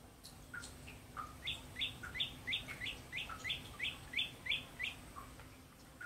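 A small songbird sings a fast run of about eleven matching whistled notes, roughly three a second, each sliding downward. The run starts about a second and a half in and stops near the end. Softer, lower chirps are scattered around it.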